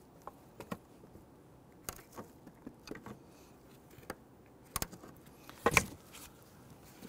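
Hose clamp pliers working a spring hose clamp onto a rubber heater hose: scattered light metal clicks and scrapes, with the loudest clacks about five seconds in.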